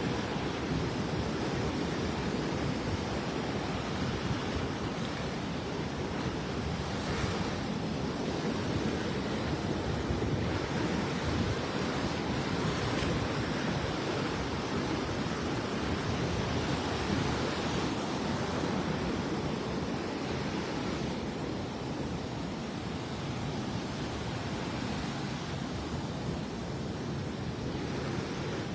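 Steady surf washing onto the beach, mixed with wind blowing on the microphone.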